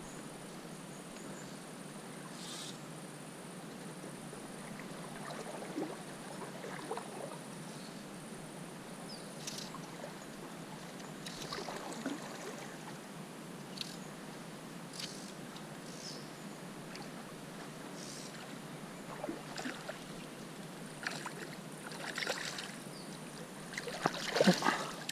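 Steady hiss of flowing river water with scattered small splashes and clicks, then a hooked large trout thrashing and splashing at the surface close by, the loudest sound, about a second before the end.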